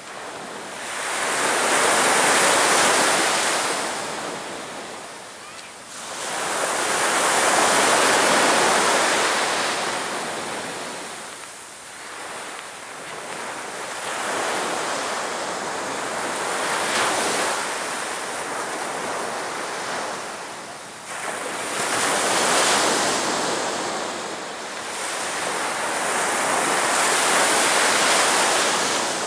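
Sea surf breaking on a beach, each wave swelling and fading in turn, about every five seconds.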